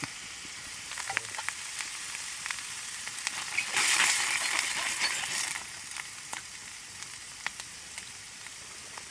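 Food frying in a hot pan: a steady sizzle with scattered pops and crackles, swelling louder for about two seconds near the middle.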